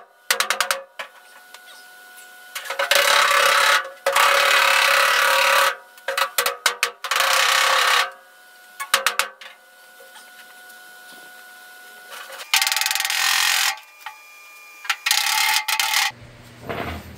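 A hand-held pad scrubbing back and forth on the 1948 Willys truck's steel roof panel: long rasping strokes in which the sheet metal rings, broken by quick runs of sharp ticks. Near the end a low hum takes over.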